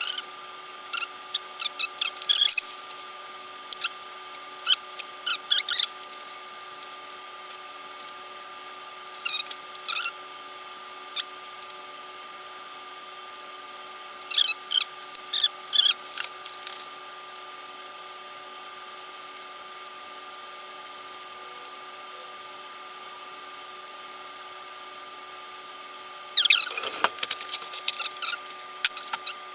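Bursts of rapid clicking from hand tools and bike parts being worked during bicycle assembly, in clusters with pauses between them; near the end a longer scraping sound. A steady faint hum underlies it all.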